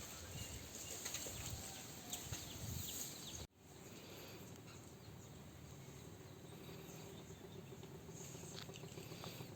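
Faint background ambience with a few light clicks. It drops out abruptly about three and a half seconds in, then comes back as a low, steady hum.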